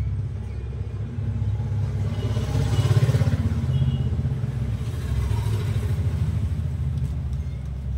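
A motor engine running with a low, steady rumble. It grows louder about two to four seconds in, then eases off.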